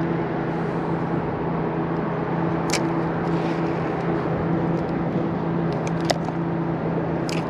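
Small boat's motor running steadily, a low even hum, with a couple of brief clicks.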